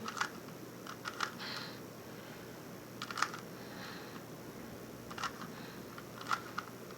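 Rubik's Cube layers being turned by hand: irregular plastic clicks, a few at a time, spaced a second or two apart.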